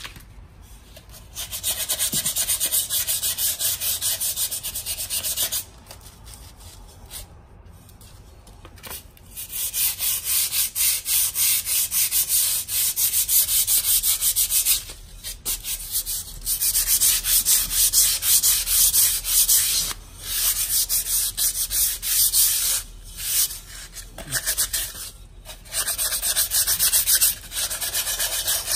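Sandpaper rubbed by hand along the rim of an unglazed terra cotta clay pot to smooth and even the edge: quick back-and-forth scratching strokes in spells of a few seconds, with short pauses between.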